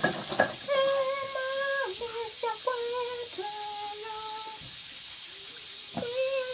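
A pressure cooker hissing steadily as it lets off steam while the beans cook, with someone humming a slow tune in long held notes over it.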